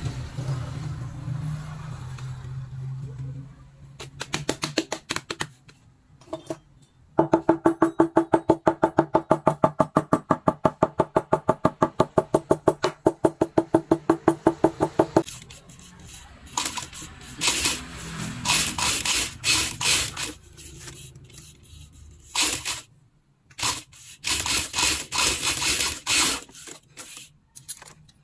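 A metal hammer tapping rapidly and evenly on stacked leather shoe pieces, about five blows a second for some eight seconds, each blow ringing with a clear pitch. Scattered clicks come before the hammering, and bursts of scratchy noise follow it.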